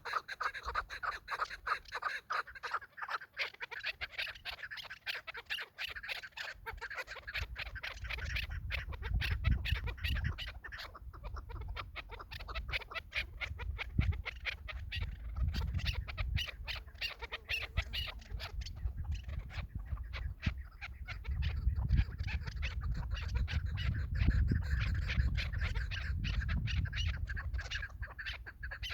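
Chukar partridges calling: a fast, continuous series of repeated clucking notes, with a low rumble underneath for much of it.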